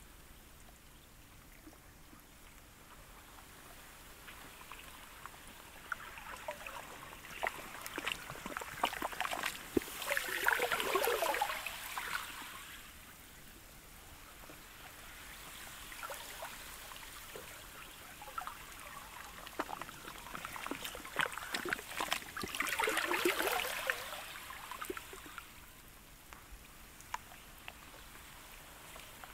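Sea ice of sludge and pancake ice lapping the shore. Two swells wash in, one peaking about a third of the way in and another a little past two-thirds; each builds over a few seconds with many small crackles and ticks, then ebbs back to a low wash.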